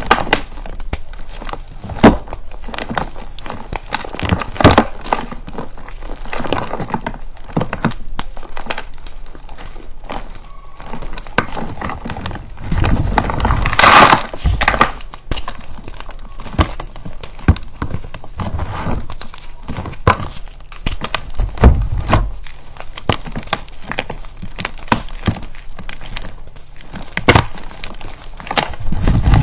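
Thick blocks of purple reformed gym chalk crushed and crumbled by hand into a plastic tub: a continuous run of dry crunches and crackles as chunks snap and powder falls, with heavier crunching about halfway through and again a little later.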